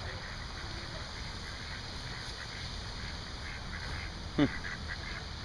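Mallard ducks and Canada geese calling on a pond, short scattered quacks and honks over steady background noise, with one sudden loud short sound a little past four seconds in.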